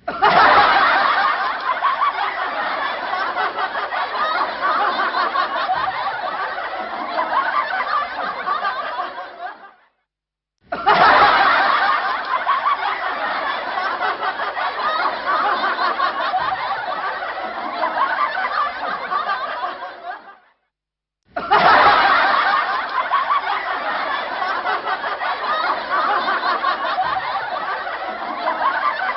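Laughter sound effect: a roughly ten-second stretch of snickering and chuckling laughter played three times over, each time fading out into a brief silence before the next begins.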